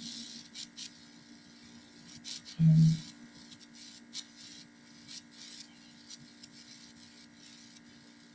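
Steady low electrical hum, with soft breaths from a woman doing glute bridges on a mat. About three seconds in there is one short voiced sound, like a half-spoken rep count or a grunt.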